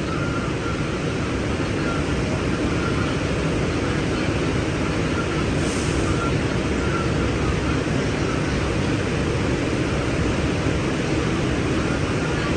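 New York City subway train on the 1 line running along the track, heard from inside the car as a steady, even rumble of wheels and motors that grows a little louder in the first couple of seconds.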